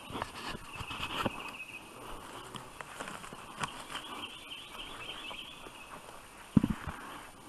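Footsteps and brush rustling through dry leaf litter and twigs as people walk through thick woods, with scattered crackles and snaps. A steady high chirping runs behind. About six and a half seconds in there is one loud, dull thump.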